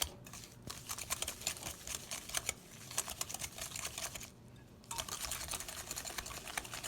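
Hand mixing of a cake batter in a bowl: a utensil clicks and scrapes rapidly and unevenly against the bowl as butter, sugar and egg are beaten together, pausing briefly about four and a half seconds in.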